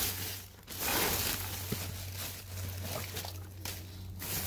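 Rustling and shifting of discarded items being rummaged through in a dumpster, coming in uneven surges, over a steady low hum.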